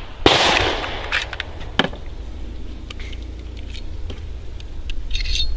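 Glock 36 pistol being field stripped: a sharp snap with a short rush of noise as the slide is worked, followed by a series of small clicks and a brief rattle as the parts are handled.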